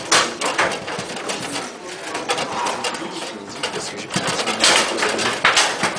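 Foosball play on a Bonzini table: the ball is struck by the player figures and the rods knock, giving irregular sharp knocks over a continuous rattle. The loudest knocks come right at the start and in the last two seconds.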